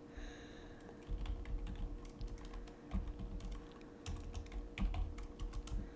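Typing on a computer keyboard: irregular runs of keystroke clicks as a line of code is entered.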